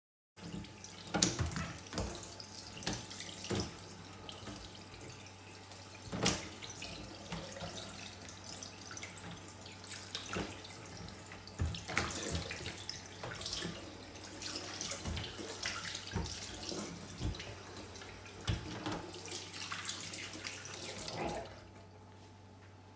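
Kitchen tap running into a stainless steel sink while a whole trout is rinsed by hand under the stream, with splashing and sharp knocks of the fish and hands against the steel sink and drainer. The running water stops near the end.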